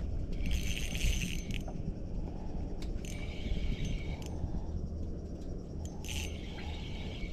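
Spinning reel being cranked in three short bursts of about a second each, a high whirring with a metallic rattle, over a steady low rumble.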